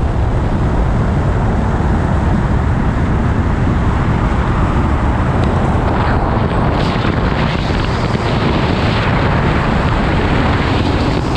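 Wind rushing over the microphone on top of steady road and engine noise from a car cruising at highway speed.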